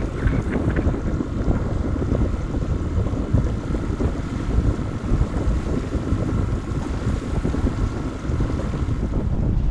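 Wind buffeting the microphone over water rushing and splashing along the hull of a sailboat under way. A faint steady tone runs underneath.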